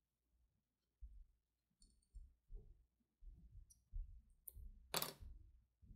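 Faint handling of knit fabric with small plastic sewing clips being fastened: soft rustles and a few light clicks, with one sharper, louder click-and-rustle about five seconds in.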